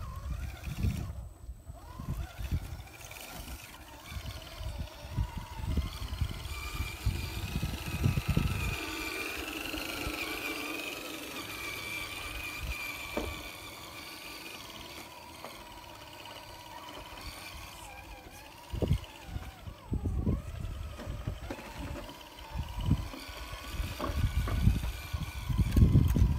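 Radio-controlled crawler truck driving over rock and then sand: a thin electric-motor whine that wavers in pitch, strongest midway, with irregular low rumbles and crunches near the start and again near the end.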